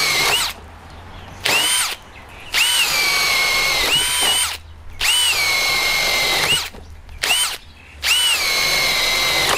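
Cordless drill with a 25 mm spade bit boring a series of holes through timber, in several runs of one to two seconds with short trigger blips between them. Each run's motor whine sinks in pitch as the bit bites and jumps back up just before it stops.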